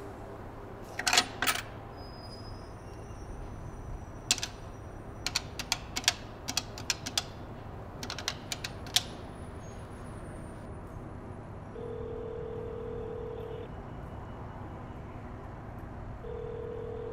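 A payphone call being placed: sharp clicks of the phone being worked, the loudest two about a second in and a run of quicker ones from about four to nine seconds in, then the ringback tone of the call ringing at the other end, sounding twice for about two seconds each.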